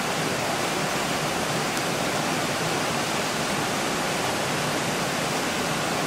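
River water rushing steadily, an even unbroken hiss with no change.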